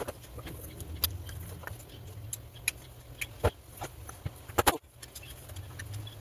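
Scattered clicks and clinks of small metal parts and tools being handled, with a sharper cluster of knocks about three quarters of the way through, over a low steady hum.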